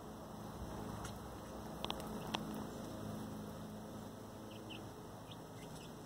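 Young chickens (pullets) giving soft, short, high peeps in the second half, with a few sharp clicks about two seconds in, over a steady low hum.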